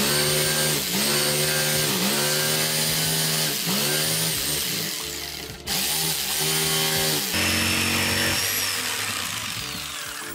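Electric jigsaw running and cutting a slot through a wooden board, its motor pitch dipping again and again as the blade loads in the cut. It cuts out briefly about halfway, starts again, and dies away near the end.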